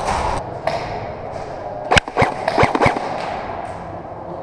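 Airsoft gunfire: a quick string of about five sharp cracks about two seconds in.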